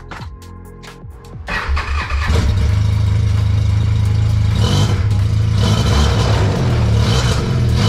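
Music with a beat. About one and a half seconds in, an Arctic Cat F1100 snowmobile engine starts, then runs steadily and loudly.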